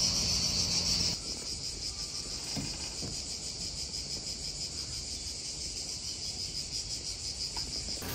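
Insects chirring: a steady, high, fast-pulsing drone. A low hum and background rumble cut out about a second in, leaving the insects alone.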